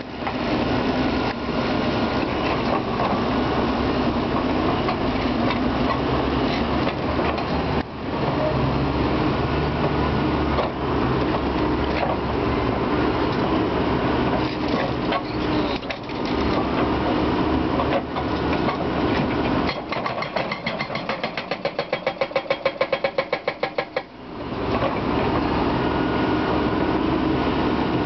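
Hydraulic breaker on a crawler excavator hammering apart concrete: a rapid, continuous pounding over the running diesel engine, broken by a few short pauses. About two thirds of the way through, the blows stand out for a few seconds as distinct rapid knocks.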